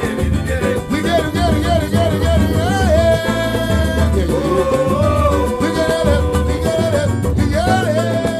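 Brazilian band music: a steady percussive groove under a melodic lead line of held, gliding notes, in an instrumental stretch between sung lines.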